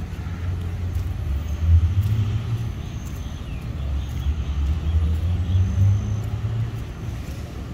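Street traffic: the engines of passing motor vehicles make a low rumble that swells about two seconds in and again in the middle, with faint higher chirps and squeaks over it.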